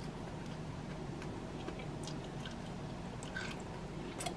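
Quiet room tone with a steady low hum and a few faint, short clicks and taps scattered through it.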